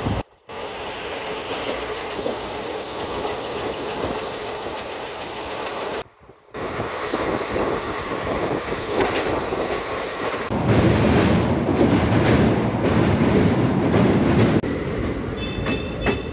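Passenger train running at speed, heard at an open coach doorway: wheels clattering over rail joints under a steady rush of running noise. Past the middle the noise turns louder and deeper for about four seconds, and it drops out briefly twice.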